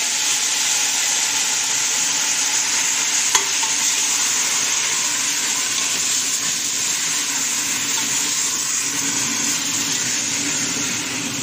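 Chopped mixed vegetables sizzling steadily in hot oil with sautéed garlic and onion as they are stirred in a steel pot: the sauté (gisa) stage, just after the wet vegetables hit the oil. One sharp click about three seconds in.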